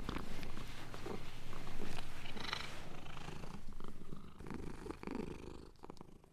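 A domestic cat purring steadily, fading out over the last couple of seconds.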